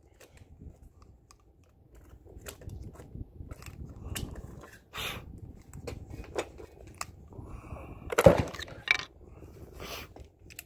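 Small metallic clicks of pistol cartridges being pressed one by one into a magazine by hand, with a single louder knock a little after eight seconds in.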